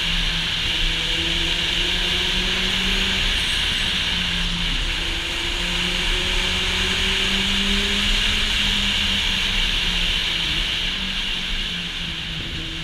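Kawasaki Z800e inline-four engine running through an Akrapovic exhaust, its revs rising and falling slightly as the bike is ridden. Heavy wind noise on the microphone runs over it.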